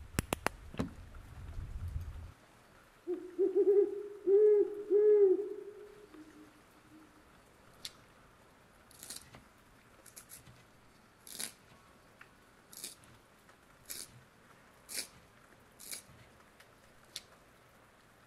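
An owl hooting: a short run of about four low hoots, the loudest sound here. It is followed by a string of short, crisp scratchy ticks about once a second.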